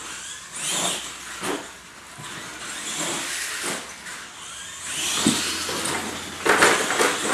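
Radio-controlled monster trucks driving on a concrete floor: their electric motors and gears whine in surges as they accelerate, with sudden knocks as they hit ramps and land. The loudest surge comes near the end, as a truck passes close by.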